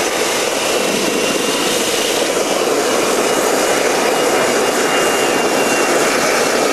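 Homebuilt turbocharger jet engine burning pressurised kerosene, running at full throttle: a loud steady roar with a faint high steady whine from the spinning turbine.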